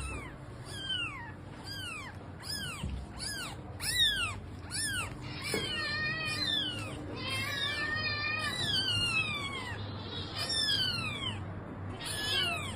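Cat meowing over and over: short, high calls that fall in pitch, about two a second, with longer drawn-out calls in the middle.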